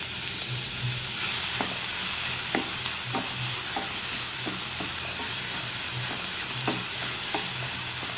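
Finely chopped onion frying in hot oil in a kadai, with a steady sizzle, while a spatula stirs it and scrapes and taps against the pan every half second to a second.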